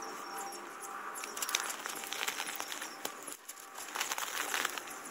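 Crinkling, crackling rattle from a home-built steel-and-Tyvek land yacht in motion, coming in two spells: one starting about a second in, the other near the end.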